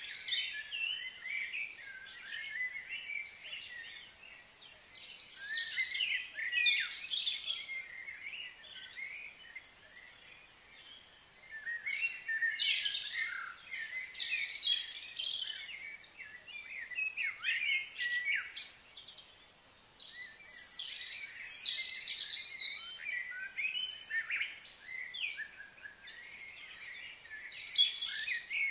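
Songbirds chirping and twittering in busy bouts of quick, high notes, with quieter stretches between.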